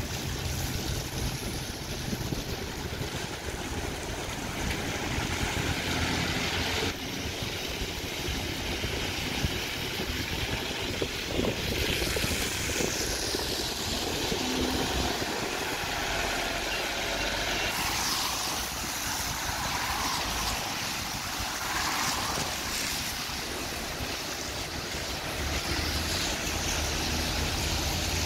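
London double-decker buses pulling away and passing close on a wet road: engine and tyre noise with rising and falling drive whines, amid steady street traffic.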